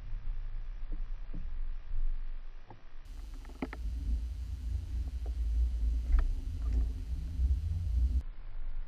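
Underwater ambience picked up by an action camera: a steady low rumble of water with scattered faint clicks. It grows louder and fuller about three seconds in and drops back near the end.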